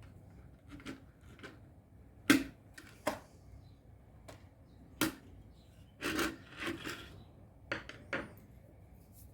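Irregular clicks and knocks of small hard objects being handled, about a dozen in all, the sharpest about two seconds in and a quick cluster a little after the middle.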